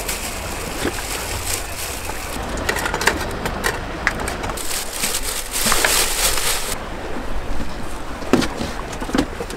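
Folding camp chairs and a table being packed up: scattered knocks and clatter over a steady low outdoor rumble.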